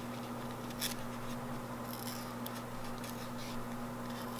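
Fingers working open the flap of a cardboard playing-card tuck box: faint scratchy rustles and a few light clicks of paperboard, over a steady low hum.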